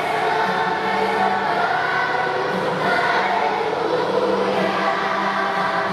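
A choir singing, with several voices holding notes together.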